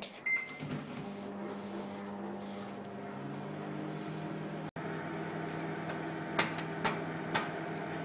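Microwave oven starting with a short beep, then running with a steady hum while heating corn kernels in a paper bag. In the second half, a few sharp pops as the first kernels burst.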